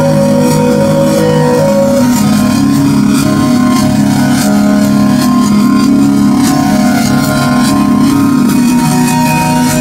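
Instrumental music: long held notes and chords at a steady level, with faint light percussion.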